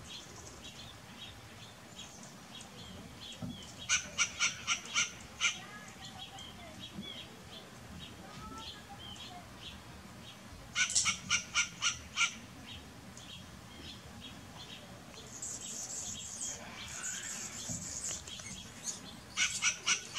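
Western gray squirrel barking in three bouts, each a quick run of about five or six short, sharp barks packed into a second or so; the last bout is cut short near the end.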